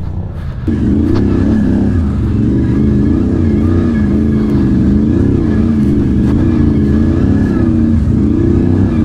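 ATV engine revving hard under load as the quad climbs a steep slope, its pitch rising and falling with the throttle over a low rumble. It comes in loud under a second in.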